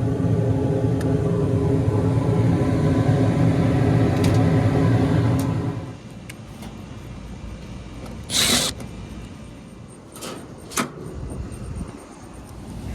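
Packaged rooftop HVAC unit running with a steady machine hum that cuts off about six seconds in. After it stops come a brief loud hiss and a couple of sharp clicks.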